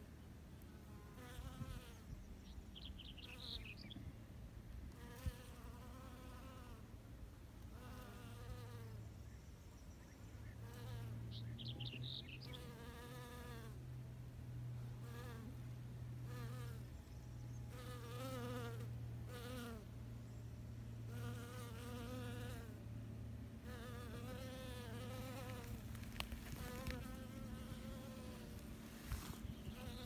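A bee buzzing as it flies among purple sage flowers. The buzz is a steady low hum that grows louder from about ten seconds in and eases off again near the end, with short repeated calls in the background.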